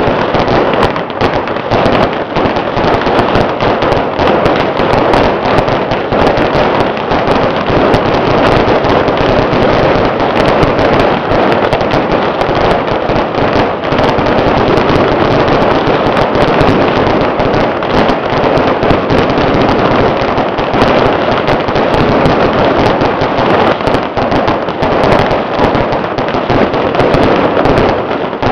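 Firecracker strings going off in a dense, continuous crackle of rapid bangs that never lets up.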